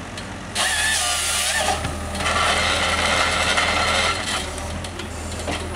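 Crawler forwarder's engine running steadily while its loader crane works, with two loud stretches of creaking, scraping noise, one from about half a second in and a longer one from about two seconds in, as logs held in the grapple rub against each other.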